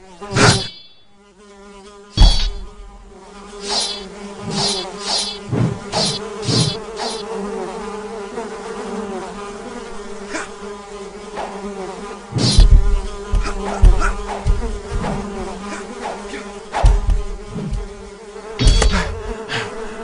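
A steady insect buzz throughout, cut by a series of sharp swishes and heavy thuds. The strongest come about two seconds in and again from about twelve seconds on.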